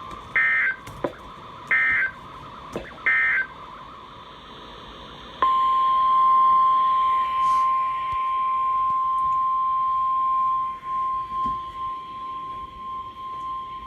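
Emergency Alert System tones on NOAA Weather Radio. Three short screeching digital data bursts (the SAME header) come about a second and a half apart. About five seconds in, the steady single-pitch weather radio warning alarm tone starts and holds, signalling that a new warning is about to be read.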